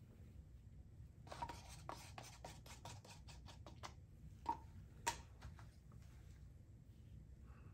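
Very faint handling noise: a quick run of light clicks and taps, then two slightly louder single clicks about four and a half and five seconds in, as gloved hands handle the paint cup and take hold of the canvas.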